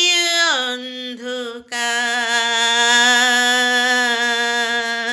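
A woman singing a Bengali song unaccompanied. Her voice glides down to a lower note, breaks off for a quick breath, then holds one long, slightly wavering note.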